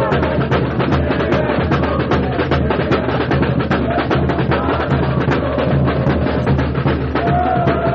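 Supporters' samba drum section (bateria) playing live: a fast, steady rhythm of sharp hand-percussion strokes over booming surdo bass drums.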